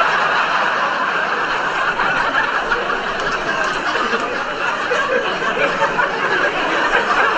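Audience laughing steadily in response to a stand-up comedian's punchline.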